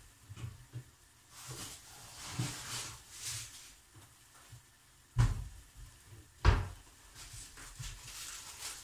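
A kitchen door being opened and shut: two solid thumps about a second apart a little past halfway, with rustling handling noise before and after.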